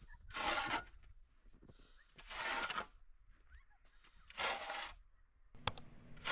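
Small hand shovel scraping and scooping snow off a concrete doorstep, three strokes about two seconds apart.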